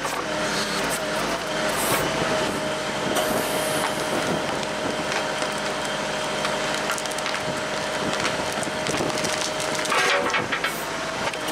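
Kubota L48 tractor-loader-backhoe's diesel engine and hydraulics working hard under load as the backhoe bucket presses on a quartered stump, with a steady whine that holds until near the end and the stump's wood creaking and cracking.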